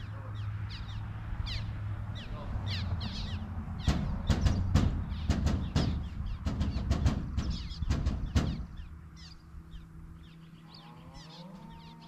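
Birds calling in repeated short, falling chirps, with a flurry of sharp clicks in the middle. Under them runs a steady low hum, likely the motor of the spinning-wing decoy, that eases off near the end.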